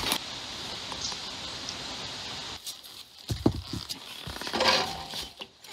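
Rustling and scraping with a few short knocks as a heavy Husqvarna Norden 901 adventure motorcycle lying on its side among rocks is heaved upright by hand. The knocks come about three and a half seconds in, and a louder scrape follows near the end.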